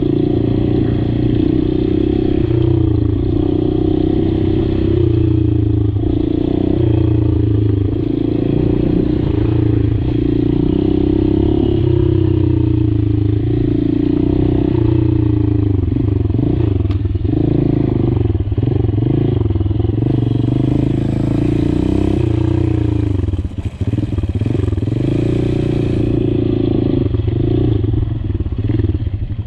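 Honda XR200's air-cooled single-cylinder four-stroke engine running at low speed under a light throttle, heard from on board the bike. The revs keep rising and falling, and dip sharply several times in the second half, most deeply about two thirds in.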